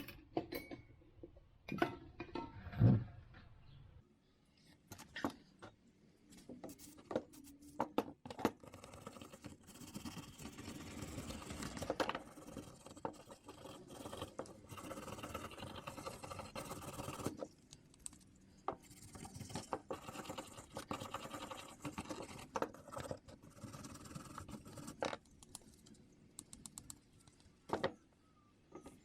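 Scrubbing and scraping on a pair of rusty, corroded hand pruning shears during cleaning with degreaser, with frequent clicks and knocks of the metal tool being handled. The scrubbing is most continuous in the middle stretch.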